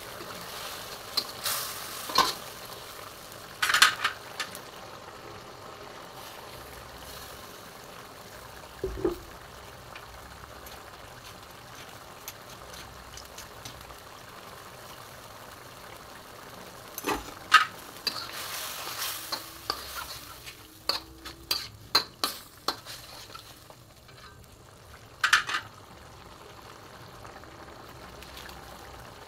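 Curry simmering and bubbling in a wok, with a metal ladle stirring, scraping and clinking against the pan. There are a few clinks early on and a quick run of clinks about two-thirds of the way through.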